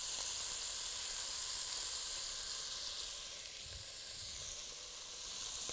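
Pieces of lamb shoulder sizzling as they sear and brown in a hot pot, a steady frying hiss that eases slightly a few seconds in.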